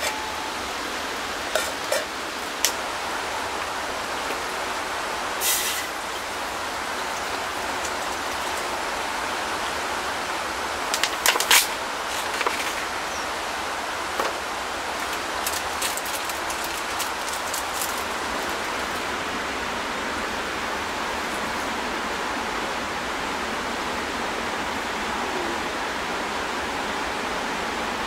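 Steady hiss of rain falling on and around a tarp shelter, with a few sharp taps and clicks scattered through it, the loudest cluster about eleven seconds in.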